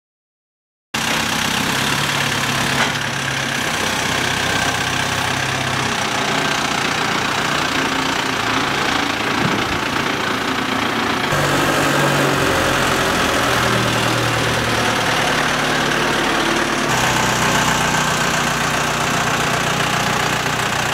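Forklift engine running steadily as it tows a boat trailer. The sound starts about a second in and changes abruptly twice, about eleven and seventeen seconds in.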